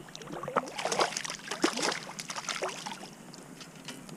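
A small hooked white bass splashing and thrashing at the surface beside a kayak as it is brought in, in a burst of splashes lasting a couple of seconds before it settles.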